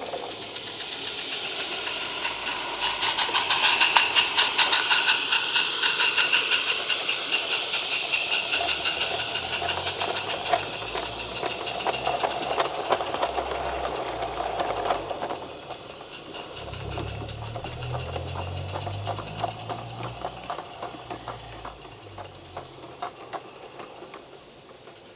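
Small live-steam garden-railway locomotive running with a rapid hissing exhaust beat, its wagons clicking over the track. It is loudest about three to seven seconds in, then fades as the train draws away.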